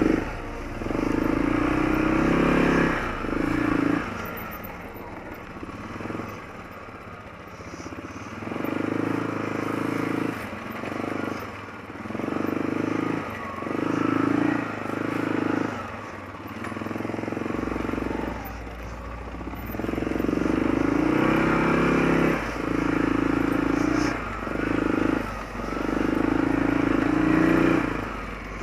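Arctic Cat 650 H1 ATV's single-cylinder four-stroke engine, freshly rebuilt with a Wiseco piston and on its break-in shakedown ride, running on a trail with the throttle opened and eased off repeatedly, so the engine note swells and drops every second or two.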